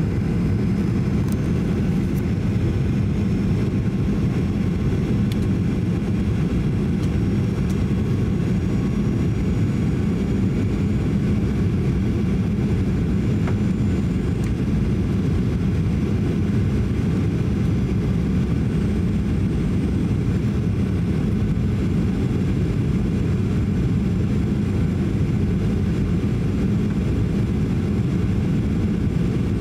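Steady cabin noise inside a Boeing 737-800 on final approach: a steady low rumble of airflow and its CFM56-7B jet engines.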